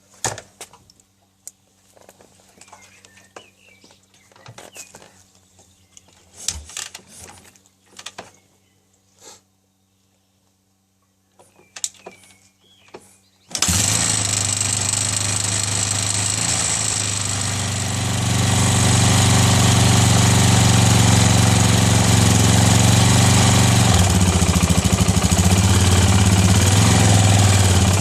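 Scattered clicks and knocks, then about halfway through a Yamaha XT 350's single-cylinder four-stroke engine starts suddenly and runs, picking up a little a few seconds later and holding steady. The owner finds the engine's noises strange and reports it smoking.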